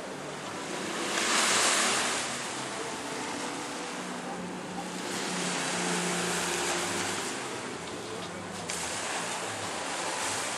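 Sea waves washing in, the noise swelling and ebbing in several surges, the strongest about a second in. A faint low hum sounds through the middle.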